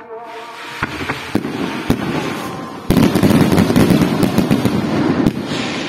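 Fireworks going off: a few separate sharp bangs, then about three seconds in a loud, dense crackling barrage of rapid reports that cuts off suddenly just after five seconds.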